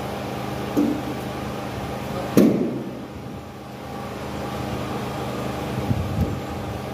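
Construction-site sound of structural glass being installed from steel scaffolding: a steady machine hum with a sharp knock about two and a half seconds in, a lighter knock earlier and a few soft thuds near the end.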